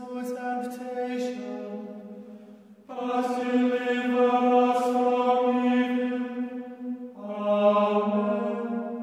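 Choir singing slow sacred music in long held notes over a steady low note. One phrase fades out, a louder phrase begins about three seconds in, and another enters about seven seconds in.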